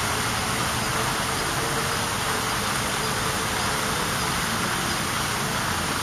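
Steady, even wash of city traffic noise, with no bird call standing out.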